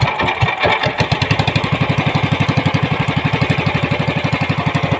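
Small engine of an outrigger fishing boat running under way. Its beat quickens about a second in, then holds a fast, even pulse.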